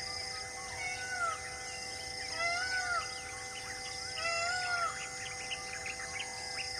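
Forest birds calling: one bird gives an arching, rise-and-fall call three times, among many short chirps. Steady high background tones run throughout.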